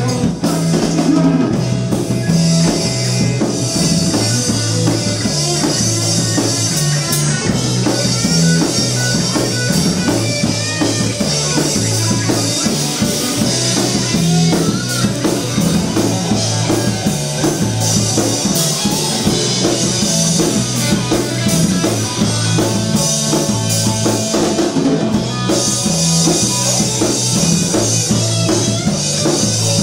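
Live rock band playing loud and without a break: electric guitar, bass guitar and drum kit, with a steadily pulsing bass line.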